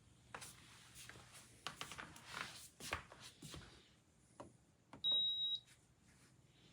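A handful of clicks and light knocks, then about five seconds in a single steady high-pitched electronic beep lasting about half a second, the kind a portable air conditioner gives to acknowledge a button or remote command.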